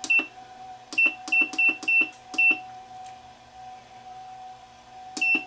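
Spot welder's control panel beeping as its power setting is stepped down: eight short high beeps, most in a quick run between about one and two and a half seconds in, the last near the end. A steady faint hum lies underneath.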